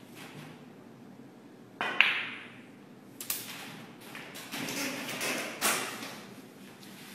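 Snooker balls being struck: a sharp click of cue tip on cue ball and the ball-on-ball knock just after, about two seconds in, ringing briefly in the room. A few more knocks and thuds follow over the next few seconds as the balls run on.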